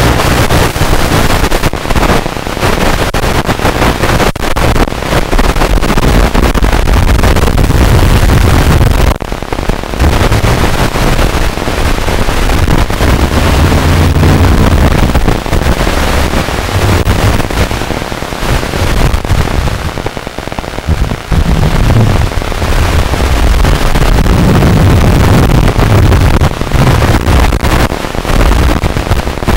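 Loud, continuous rough crackling noise with a few short dips and, at times, a faint low hum beneath it.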